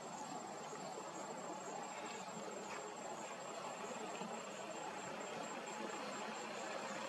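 Insects, likely crickets, chirping steadily in a high, evenly pulsed trill, a few pulses a second, over a soft background hiss.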